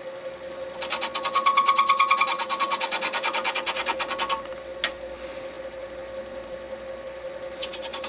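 Midi lathe running with a steady hum while a tool is held against the spinning acrylic pen blank, giving a fast, even rhythmic rattle. The rattle runs from about one second in until past four seconds and starts again near the end, with a single sharp click in between.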